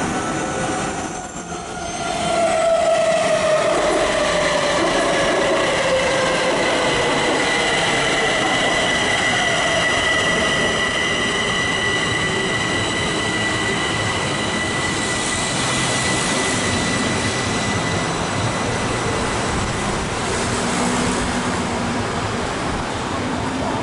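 Kaohsiung MRT electric train pulling into an elevated station and braking. Its motor whine falls in pitch, and a high steady squeal fades out as the train comes to a stop about 18 seconds in, over the rumble of the wheels on the track.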